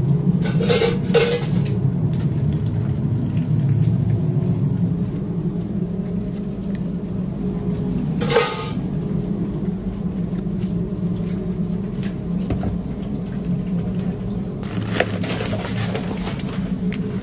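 Metal kitchenware clanking a few times while cooking, with sharp knocks about a second in and again near the middle, over a steady low hum.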